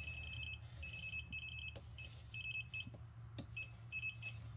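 A Kaiweets pen-type voltage tester beeping in non-contact voltage mode as it senses live AC voltage in the plugged-in cord. Its high-pitched pips come quickly in uneven clusters, several a second, breaking off and starting again.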